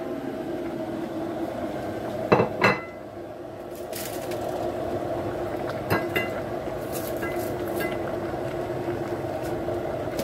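Wooden spoon stirring spaghetti in a stainless-steel pot, knocking and clinking against the pot. Two louder knocks come about two and a half seconds in, and a few lighter clinks follow later, over a steady low hum.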